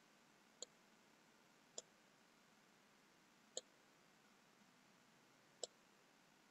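Four faint computer-mouse button clicks at uneven intervals against near silence, made while placing loop cuts on a mesh.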